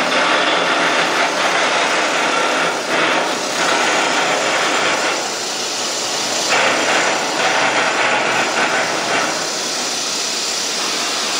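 Loud, steady machinery noise, a rough hiss without a clear tone, easing slightly around the middle.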